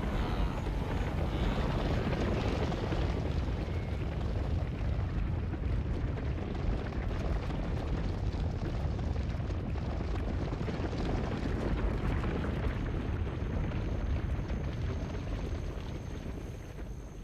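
Hooves of a large wildebeest herd galloping over dry ground, a steady, dense rumble that fades near the end.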